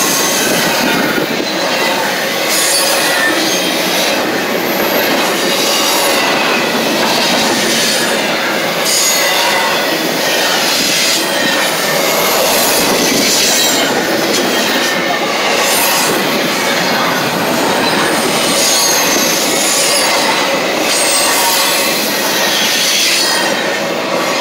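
Norfolk Southern double-stack intermodal train rolling past close by: a steady, loud rumble and rattle of steel wheels on rail, with brief high wheel squeals throughout. The noise begins to fall away at the very end as the last car passes.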